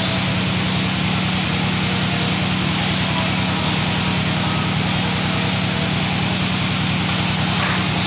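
A steady mechanical drone with an even hiss over it, unchanging throughout.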